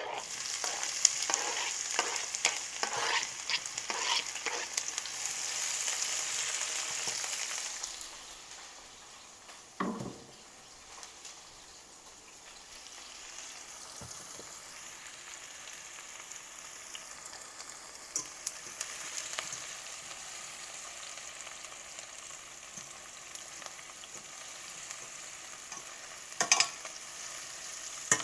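Diced red onion and green pepper hitting hot oil in a stainless steel sauté pan. They sizzle loudly at first, with scattered clicks as the pieces land, then settle into a quieter, steady sizzle after about eight seconds. A dull knock comes about ten seconds in, and a few sharp clicks come near the end.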